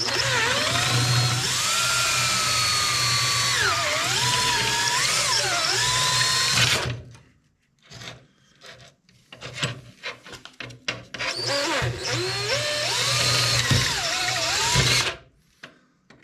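Power drill drilling a hole through the clamp parts for a screw. It runs in two long runs, the motor's pitch sagging and recovering as the bit bites, with a few seconds of short clicks and knocks between them.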